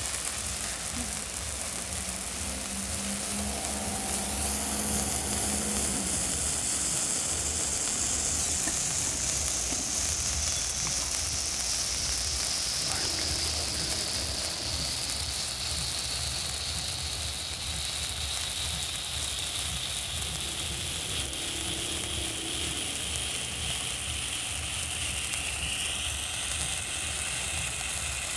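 Handheld ice fountain firework burning, a steady hissing spray of sparks, with a faint high tone that slowly falls in pitch as it burns.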